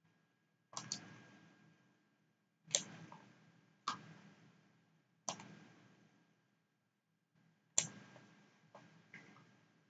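Faint, sharp computer mouse clicks, about eight of them at irregular intervals of one to two and a half seconds, one of them doubled near the start, each trailing off in a short fading hiss.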